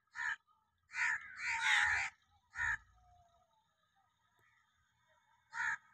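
A crow cawing: a quick run of harsh caws with one drawn out, then a last caw near the end.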